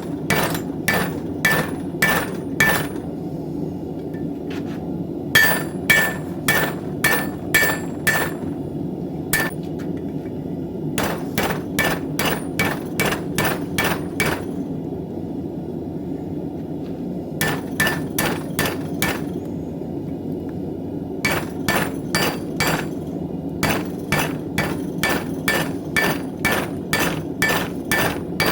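Hand hammer striking a knife blank on an anvil in runs of blows, about three a second, each with a brief metallic ring. There are short pauses between the runs.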